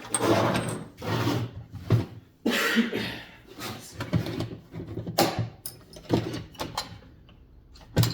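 Rummaging on a cluttered workbench: objects are shoved and slid about in several scraping swishes over the first few seconds, then a run of separate sharp clicks and clinks as small metal items such as drill bits are picked up and set down.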